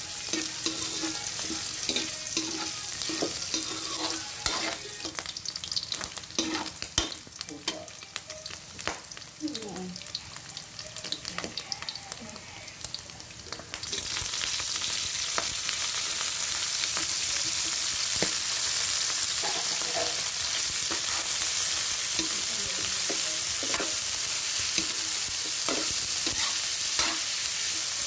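Diced pork, garlic and onion sizzling in oil in a wok, with a metal spatula scraping and tapping the pan. About halfway through, shredded banana blossom is tipped into the hot oil and the sizzle jumps to a loud, steady hiss.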